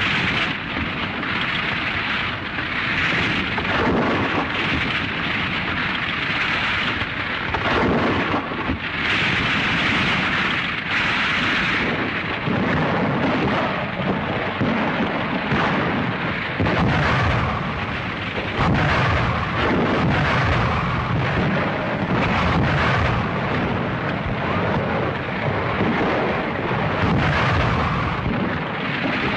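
Continuous rumbling noise of tanks on the move, their engines and tracks running and swelling and easing in waves, heard through an old newsreel soundtrack.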